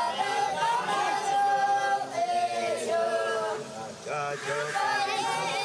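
Several voices singing together unaccompanied, in held notes that waver and slide in pitch.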